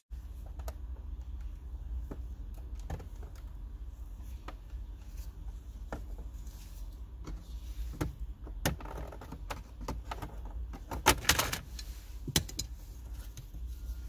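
Plastic clips of a BMW F30 gear-shifter surround trim clicking and snapping as a plastic pry tool works the trim loose from the centre console, with the loudest cluster of snaps about eleven seconds in. A steady low hum runs underneath.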